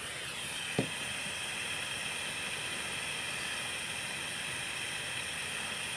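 A steady hiss, with a single faint click about a second in.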